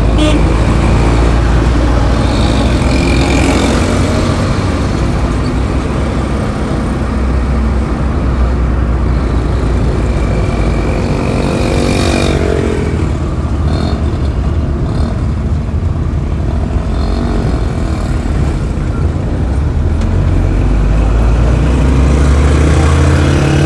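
Busy road traffic: engines and tyres make a steady low rumble, with short horn toots now and then. About halfway through, an engine revs up in a rising pitch.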